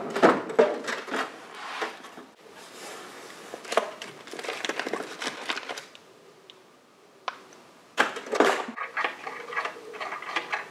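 Irregular clicks, knocks and rustling of small parts and hand tools being handled on a workbench, with a quieter stretch past the middle.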